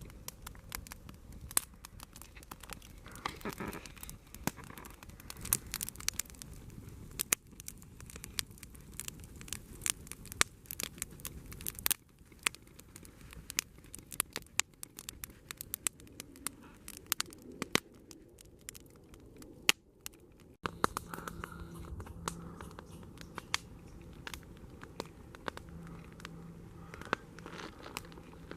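Wood campfire crackling: a dense, irregular run of sharp pops and snaps, with a brief break about two-thirds of the way through.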